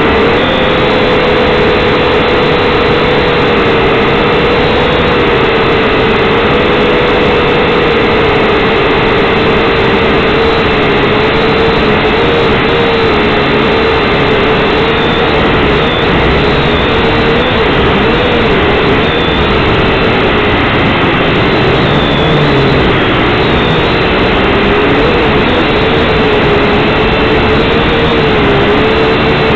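Syma X5C quadcopter's small brushed motors and propellers whining steadily, heard up close from the drone's own onboard camera. The pitch wavers up and down as the throttle is worked, more unsteadily in the second half.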